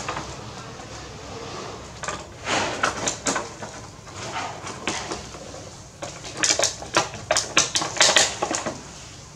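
Baby macaque chewing and biting strawberries, with wet, crackly munching and lip-smacking close to the microphone in two bouts: one about two seconds in and a longer, denser one from about six seconds in.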